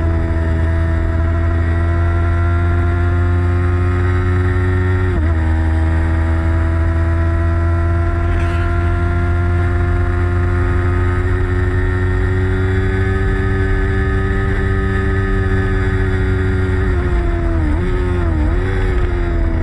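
Motorcycle engine at speed on a race track, its note climbing steadily through the gears. There is a quick drop in pitch about five seconds in, like an upshift, and a run of pitch drops near the end, like downshifting into a corner, over a steady low rumble.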